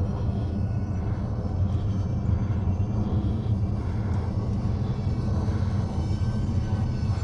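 Steady low wind rumble on the microphone, over the faint, even whine of a UMX A-10 Thunderbolt II model's twin electric ducted fans flying high overhead.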